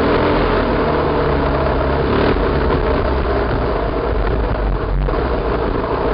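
Enduro motorcycle engine running under throttle while the bike rides over a gravel track, its pitch shifting as the rider works the throttle, with a brief drop about five seconds in.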